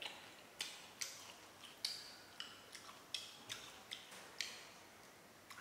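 Eating sounds: a run of short, sharp clicks and taps at uneven spacing, about ten in five seconds, a few with a brief high ring, as a person eats a dish of rat stewed in coconut milk.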